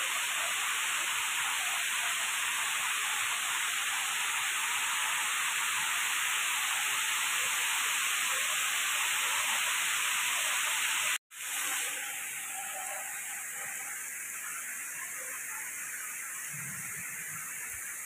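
Waterfall spilling down a rock cliff: a steady rushing hiss of falling water. It breaks off for an instant about eleven seconds in and then goes on quieter.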